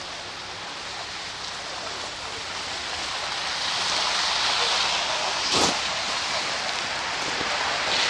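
Wet tyre noise from a car on a slush-covered road, swelling as the car comes closer, with one short knock about five and a half seconds in.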